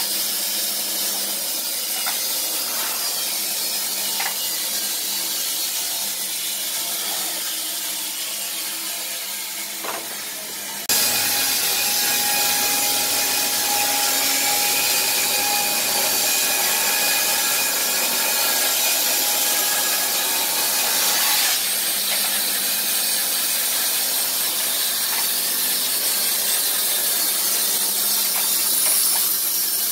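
Wood-Mizer LT15 band sawmill with an electric motor, its band blade sawing lengthwise through a squared timber: a steady, loud sawing noise. About a third of the way in it suddenly gets louder, with a steady whine over it.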